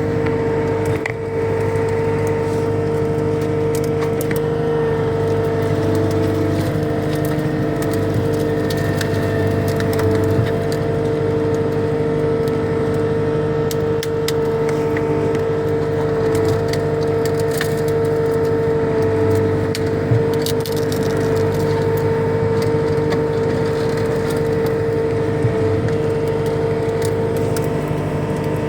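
Cat 259D skid steer's diesel engine running steadily under load with a steady whine, while branches and brush crack and snap in irregular sharp clicks as the grapple bucket rakes and pushes them.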